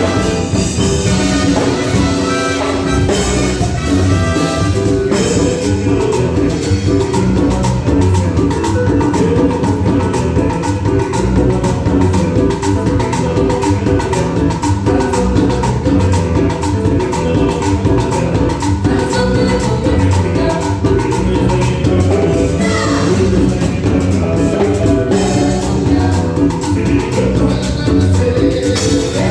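A cumbia band playing live with a steady dance rhythm, a held note carrying through the middle of the passage.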